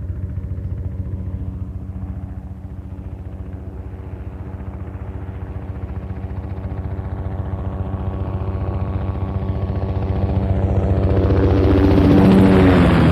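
Military helicopter flying by at medium distance: a steady rotor chop with engine tones, growing louder as it approaches and peaking near the end as it passes, its pitch starting to drop.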